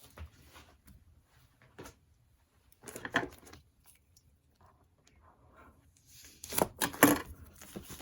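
Plastic wrapping and sheets of scrapbook paper being handled and unwrapped, rustling and crinkling in short bursts, loudest near the end.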